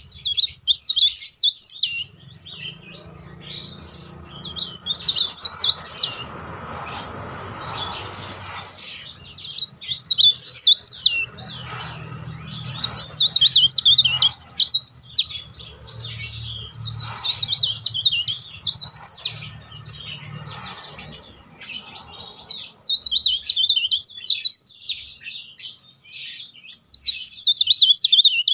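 Cikrak daun, a caged leaf warbler, singing loud, shrill, rapidly trilling phrases, each a couple of seconds long, repeated with short pauses.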